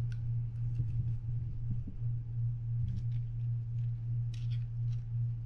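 A steady low hum with a few faint clicks from small reel parts and a screwdriver being handled.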